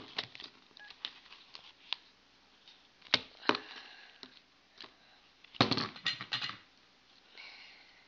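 Sticky homemade edible slime being pulled by hand out of a plastic bowl: scattered small clicks and squelches, with louder handling noises about three seconds in and again around six seconds.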